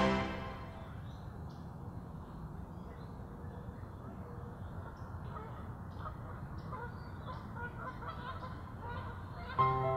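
Quiet outdoor ambience: a steady low hiss with faint short bird calls here and there. Music comes back in near the end.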